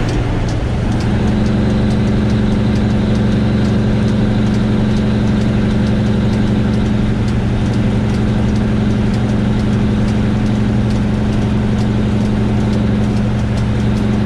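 Backhoe's diesel engine running steadily at an even pitch, with no change in revs.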